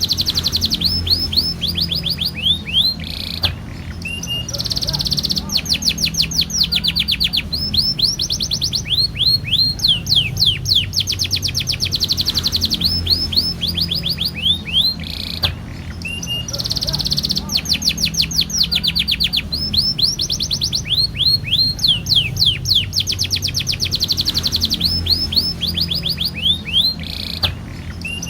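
Domestic canary singing long rolls: phrase after phrase of very fast repeated notes, each a quick downward sweep, with a steady low hum underneath.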